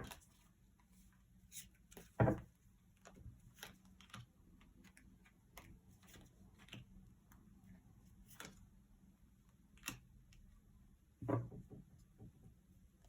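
Quiet room with scattered soft knocks and clicks of small objects being handled on a tabletop, the loudest about two seconds in.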